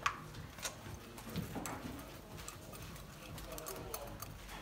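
Scattered light clicks and knocks of hand tools and a compression tester being handled on a bare engine, as the gauge is moved between spark-plug holes.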